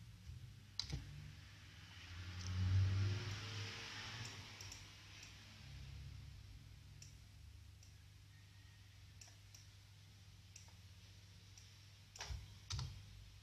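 Scattered clicks of a computer mouse and keyboard as an equation is edited, with two louder clicks near the end. A brief rush of noise comes about three seconds in, over a steady low hum.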